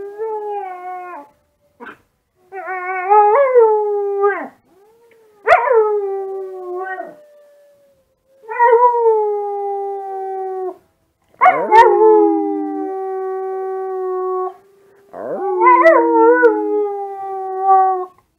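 Husky-mix puppy howling, a series of about six long howls with short breaks between, each rising quickly at the start and then holding or sliding slowly down in pitch. The howling is his response to wolf howls played online.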